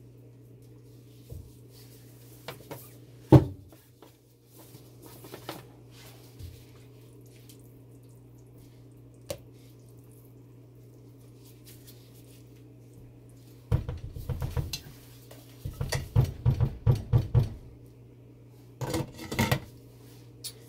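Silicone spatula knocking and scraping against a stainless steel cooking pot of thick hot-process soap batter, with one sharp clank about three seconds in and a quick run of knocks later on. A glass pot lid is set on, over a steady low hum.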